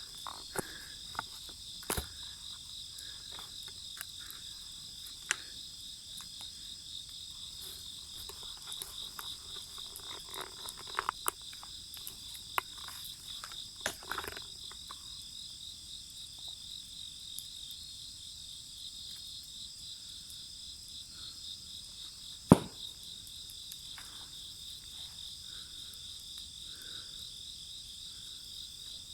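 Insects chirping steadily in several high, pulsing tones over a wood fire crackling with scattered small pops. One sharp, much louder crack comes about two-thirds of the way through.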